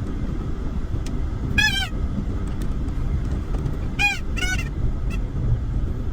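Four short honking calls, each rising and falling in pitch: one near the start, then two close together a little past the middle, and a faint one after them. A steady low rumble runs under them.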